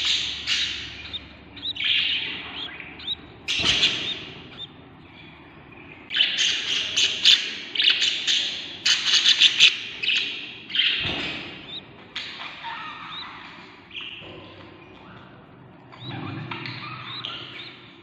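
Several budgerigar nestlings, about 16 days old, making hungry begging calls: high-pitched, rapidly pulsing chirps in bursts that come and go every second or two, busiest in the middle. Two dull knocks come at about four and eleven seconds in.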